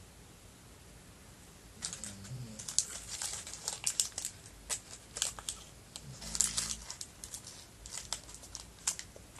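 Paper towel crinkling and rustling in the hands in quick, irregular crackles, starting about two seconds in.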